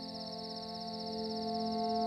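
Soft ambient film-score music: one sustained chord held and slowly swelling. Under it runs a steady high chirring of crickets.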